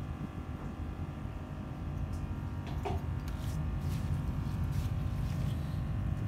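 Yamaha 40 hp outboard motor running steadily.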